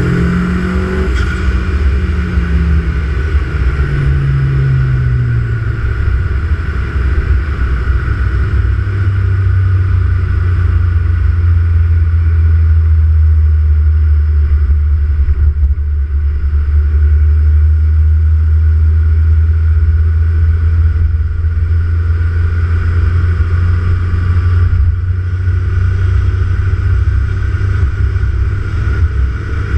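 Engine of the LCR 1M, fitted with an open-intake Pipercross air filter and a Bailey DV30 diverter valve. The revs fall in steps over the first few seconds, then it runs at a steady low engine speed.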